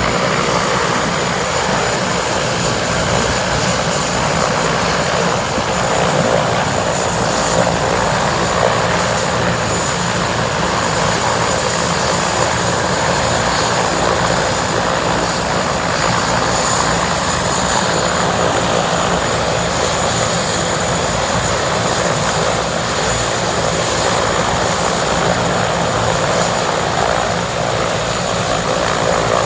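Air-ambulance helicopter running steadily, a high whine over the rotor noise, with no change in pitch or loudness.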